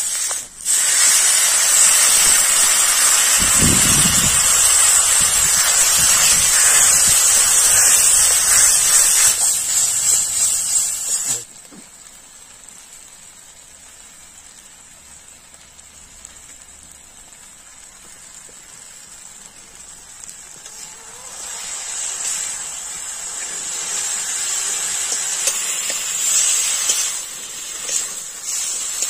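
Spiced masala sizzling loudly and steadily in a hot iron kadhai, with a low thump about three and a half seconds in. The sizzle stops abruptly about eleven seconds in and drops to a faint simmering hiss of egg curry, which swells again as the eggs are stirred through the gravy, with a few light spatula clicks.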